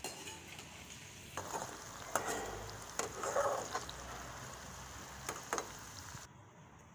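Potato pieces frying in hot oil in a small metal pan, a steady sizzle, while a slotted metal spoon stirs them, scraping and clinking against the pan several times. The sizzle cuts off suddenly near the end.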